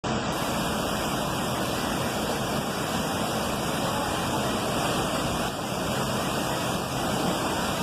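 Waterfall rushing: the steady, unbroken noise of falling water.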